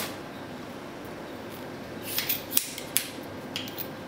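Knife-sharpener parts being handled. A handful of short, sharp clicks and light scrapes come in the second half as the metal guide rod is taken out of its foam packing.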